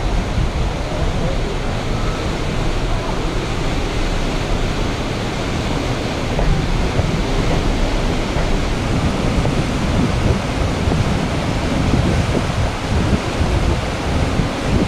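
Steady rushing roar with wind buffeting the microphone, heavy and uneven in the low end.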